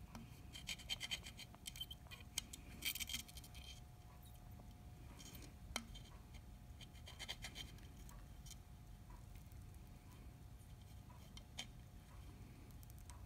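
Soldering: a soldering iron melting solder onto a stranded wire at a crimp terminal, the flux faintly crackling and sizzling in a few short clusters, with scattered small clicks.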